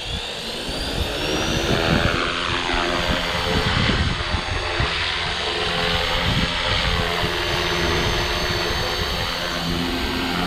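Walkera V450D03 electric RC helicopter's motor and rotor spooling up with a rising whine that levels off about a second in, then running steadily in flight, the pitch dipping and recovering as the rotor load changes. Wind rumbles on the microphone underneath.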